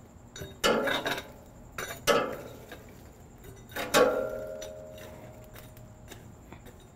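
A long metal ember rake dragging charcoal embers under a steel grill grate, clanking against the grill's metal firebox in a few sharp knocks, the one about four seconds in ringing on briefly.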